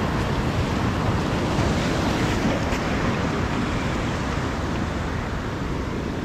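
Sea surf washing on a rocky shore, a steady rushing that swells about two seconds in and eases off, with wind buffeting the microphone.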